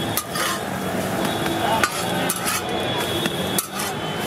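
Metal spatula scraping and clacking across a hot flat iron griddle as a cooked omelette is scooped up, over the sizzle of frying.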